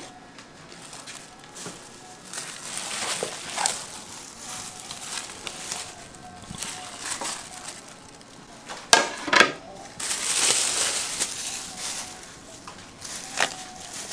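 Loose plastic wrap crinkling and rustling as a jelly cake wrapped in it is handled and turned over, with two sharp knocks about nine seconds in and another click near the end.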